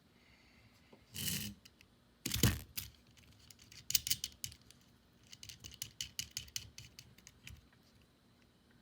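Small hand tools being handled on a microsoldering bench: two short rustling scrapes, then a run of quick light clicks and rattles.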